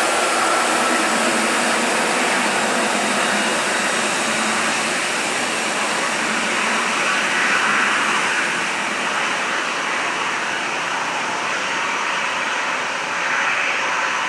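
A Kuwait Airways Boeing 777-300ER's GE90 jet engines running steadily at taxi power as the airliner turns to line up on the runway. The noise swells slightly twice.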